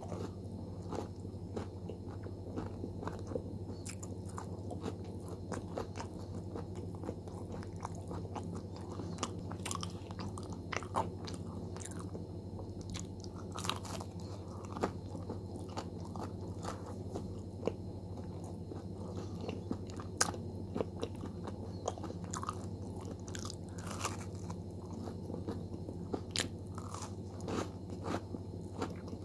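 Close-miked eating: a person biting into and chewing crusty baked pastry, with irregular crisp crunches over soft, wet chewing. A few sharp bites stand out louder than the rest.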